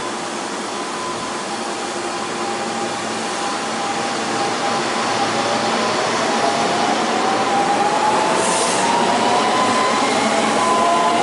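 Semboku Rapid Railway 5000-series eight-car electric train pulling out of the station. From about halfway through, its traction motors whine in several tones that rise in pitch as it accelerates, growing louder.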